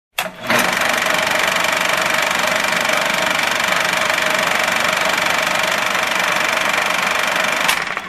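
Old-film projector sound effect: a loud, steady mechanical clatter over hiss with a constant whine. It starts with a short burst and cuts off suddenly at the end.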